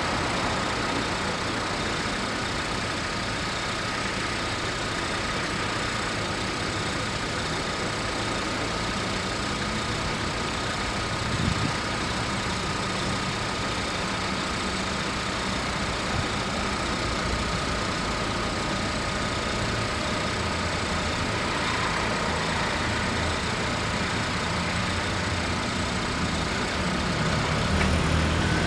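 Street traffic: a queue of cars idling at a level crossing, with a short low thud partway through. The engine sound grows near the end as the cars start to move off.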